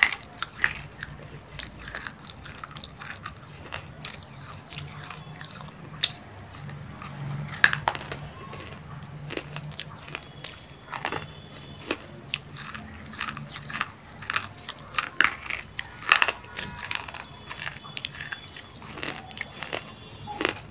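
Biting and chewing a dry, brittle roasted clay lump held up to the mouth: irregular crisp crunches and crackles, some much sharper bites standing out in the middle and toward the end.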